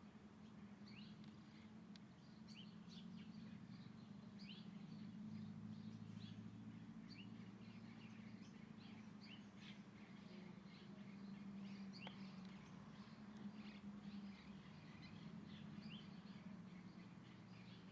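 Many small birds chirping in a dense, continuous chatter of short, quick high chirps, faint, over a low steady hum.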